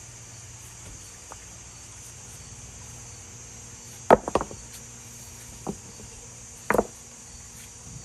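Steady high insect chorus, broken a little past halfway by a quick cluster of three sharp knocks and then two single knocks, from large round fruits being handled and knocked against the stony ground.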